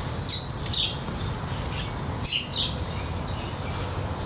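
Birds chirping: a few short, downward-sweeping high calls about half a second in and again around two seconds in, over a low steady rumble.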